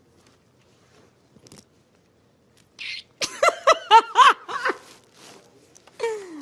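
A woman laughing: a sharp breath in about three seconds in, then a burst of high-pitched laughter in quick pulses for about a second and a half, and a falling vocal sound near the end.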